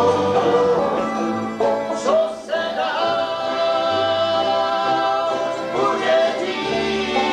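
Live bluegrass band playing, with banjo, acoustic guitar and fiddle together.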